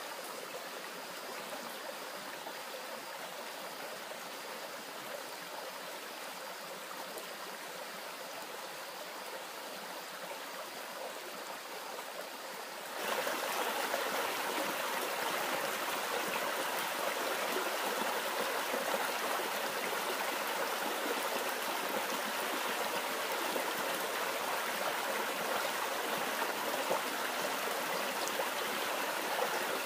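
Stream water running steadily, growing markedly louder about 13 seconds in.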